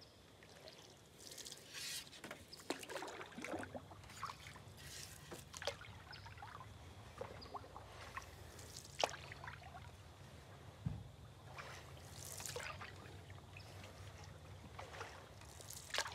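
Canoe paddle strokes: the cedar otter-tail paddle dips and pulls through the water in unhurried strokes a second or two apart, with water trickling and dripping off the blade between them. A single dull knock about eleven seconds in.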